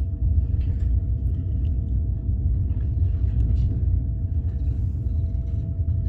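Passenger train in motion, heard from inside the carriage: a steady low running rumble with a faint steady hum above it.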